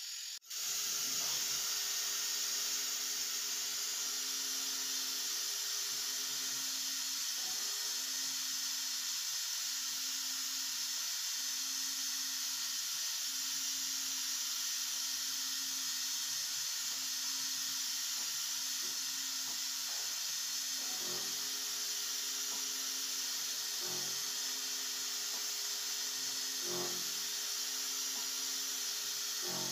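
CNC milling machine's spindle running a ball-nose end mill through finishing passes along a half-round groove in a metal block: a steady high hiss over a steady low hum, with a faint knock about every three seconds in the second half.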